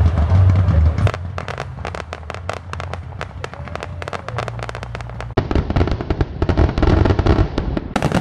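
A fireworks display: a rapid run of crackling pops, then from about five seconds in louder, denser bangs as aerial shells burst.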